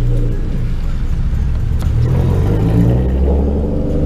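Infiniti cars driving slowly past, their engines and exhausts running with a deep rumble that rises a little in pitch about halfway through as one pulls away.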